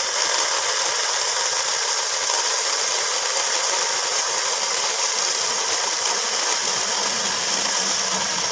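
Battery-powered 12 V mini chainsaw with a 6-inch bar and carbon-steel chain cutting through a dry branch, giving a steady high-pitched buzz.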